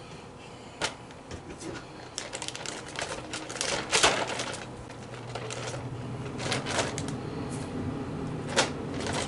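Zip-top plastic bag crinkling and rustling as it is handled with batter and trout pieces inside: a dense run of quick crackles in the middle, loudest about four seconds in, with single sharp clicks near the start and near the end.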